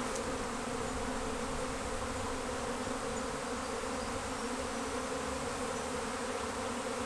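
Loud, steady hum of a honeybee swarm pouring out of its hive and filling the air: the colony is swarming, splitting off with a queen that has just taken off.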